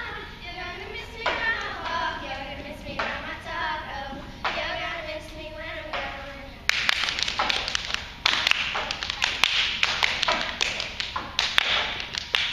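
Young girls singing together for the first half, then the song ends and an audience breaks into applause, dense clapping that is louder than the singing.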